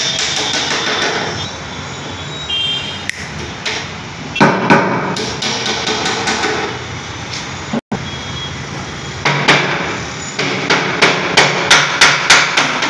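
Hammer striking a plywood panel: a few scattered blows, then a quick run of strikes, about four a second, near the end.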